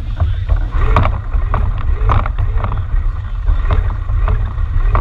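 Wind buffeting the camera microphone: a heavy, continuous low rumble with repeated short gusts.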